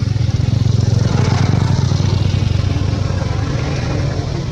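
A motor vehicle engine running close by, swelling about a second in and then slowly fading.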